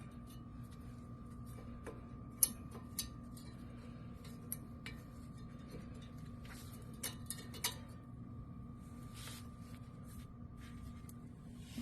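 Light metallic clicks and clinks of brake parts and tools being handled during a front brake pad change, a few sharper ones between about two and eight seconds in, over a faint steady hum.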